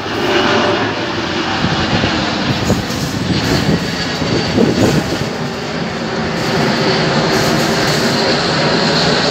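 Boeing 777-200ER airliner's twin GE90 turbofan engines passing low overhead on approach, landing gear down. A loud, steady jet rumble swells about half a second in, and a high fan whine comes in during the second half.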